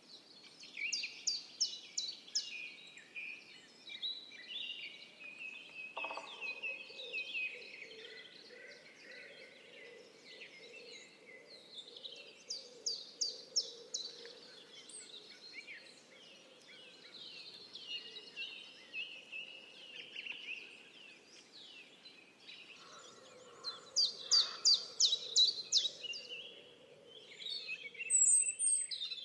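Woodland songbirds singing, several at once. One bird repeats a fast, high trill three times, loudest near the start, in the middle and towards the end. A faint steady low hum runs underneath from about six seconds in.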